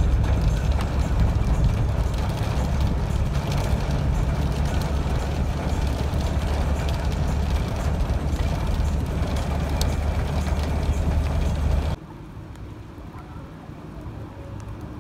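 Road noise inside a moving car: a steady low rumble of engine and tyres on wet road. About twelve seconds in it cuts off suddenly to a much quieter outdoor background.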